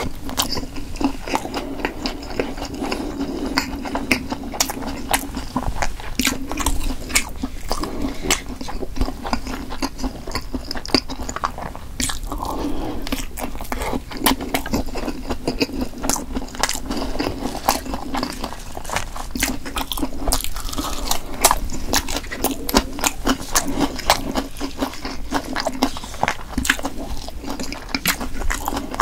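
Close-miked eating sounds: biting into and chewing Korean sundae (blood sausage), with many short sharp mouth clicks following one another steadily.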